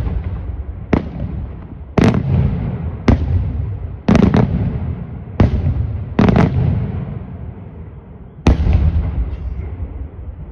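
Daytime aerial fireworks shells bursting: about nine sharp bangs at irregular intervals, some in quick pairs, each followed by a rolling echo that fades away.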